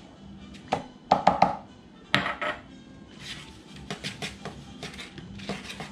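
Seasoning shaker shaken and tapped over a paper plate: a string of short clicks and light knocks, with a brighter clink about a second in.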